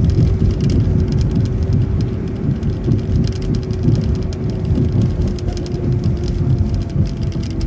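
Transit bus driving, heard from inside the cabin: a steady low rumble of engine and road noise with a constant whine, and scattered light rattles.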